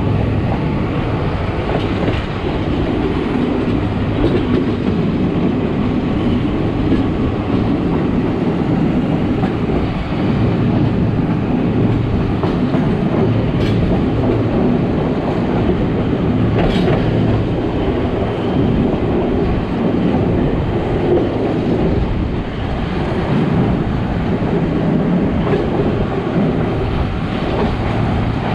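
Passenger train running along the track, heard from inside the carriage: a steady rumble of wheels on rails, with a couple of faint sharp clicks.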